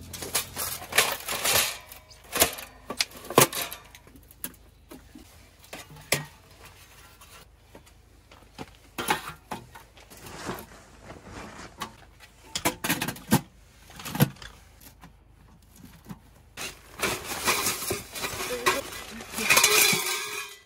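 Pomoly Taicosa tent wood stove being handled and set up by gloved hands: irregular metal clanks, knocks and scrapes, with a stretch of denser scraping and rustling near the end.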